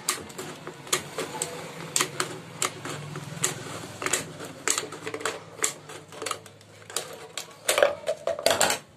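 Thin plastic water bottle crackling as it is gripped and turned in the hand, a quick irregular run of sharp clicks and snaps, loudest near the end.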